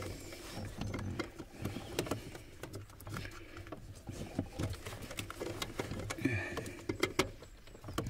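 Scattered light clicks and knocks of a Land Rover Discovery 2 brake light switch being worked by hand into its bracket at the brake pedal, over a low steady hum.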